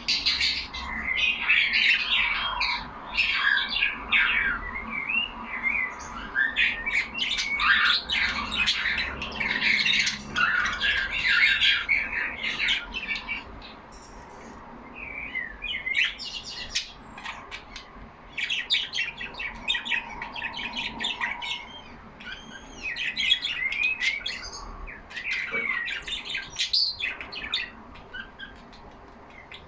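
Several pet budgerigars chattering together in rapid chirps, warbles and squawks. The chatter is busiest in the first half, eases off briefly around the middle, then picks up again in bursts.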